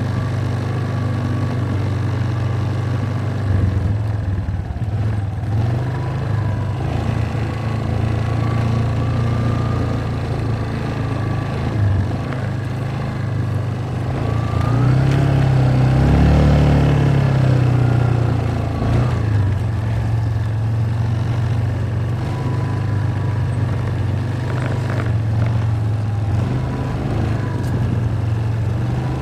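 ATV engine running under way, its pitch rising as it speeds up about halfway through, then falling back.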